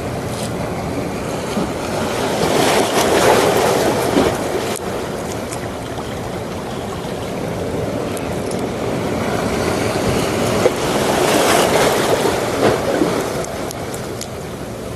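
Sea waves surging and breaking on a rocky shore, with two larger surges swelling up and dying away, a few seconds in and again near the end.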